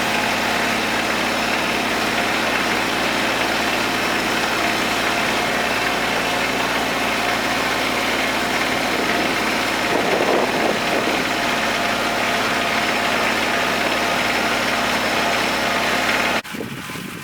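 Kubota tractor diesel engine running steadily under load while pulling a hay tedder. The engine sound drops away suddenly near the end, leaving a quieter windy background.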